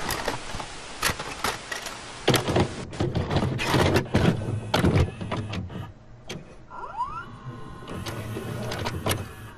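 VCR mechanism loading and starting a videotape: a run of mechanical clicks and clunks over a motor whir, with a short rising whine about seven seconds in.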